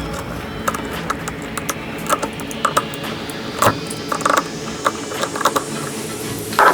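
Irregular light clicks and clinks of tools and bike parts being handled while working on a mountain bike.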